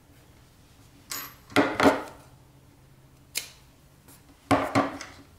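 Sharp clicks and knocks from a metal yarn needle and small tools being handled on a tabletop, in two loud pairs and a single click between them.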